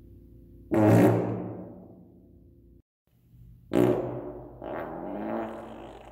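Farts echoing in a cinderblock stairwell: a loud one about a second in that rings on and dies away over a couple of seconds, then another near four seconds in, followed at once by a further burst, each trailing off in reverberation.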